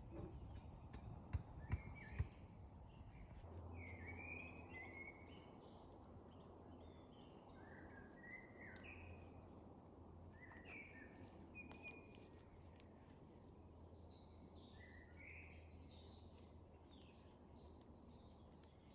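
Songbirds chirping in a spring forest, short repeated calls coming every second or so, over a faint steady low hum. A few sharp snaps or clicks sound in the first two seconds.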